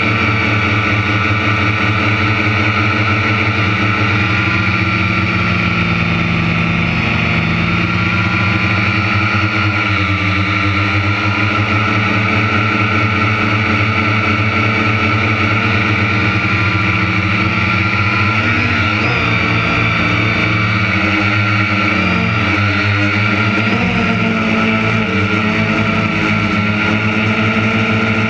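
Farm harvest machinery engine running steadily and loudly, its pitch dipping and recovering slightly a few times in the last third.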